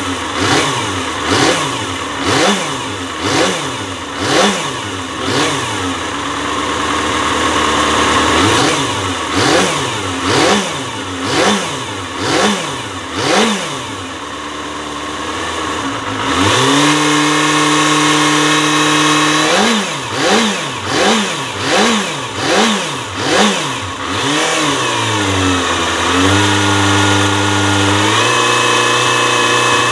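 Kawasaki ZXR250's 250 cc inline-four engine revved at a standstill: a run of quick throttle blips, each rising and falling in pitch, broken by two longer revs held for a few seconds at a higher steady pitch, one about halfway and one near the end. The freshly overhauled engine sounds in good health.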